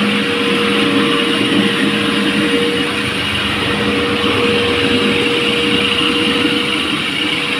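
Electric walk-behind concrete floor grinder running steadily, its grinding head working a cast terrazzo floor while the attached shop vacuum draws off the dust: an even machine hum with one constant tone over a gritty hiss.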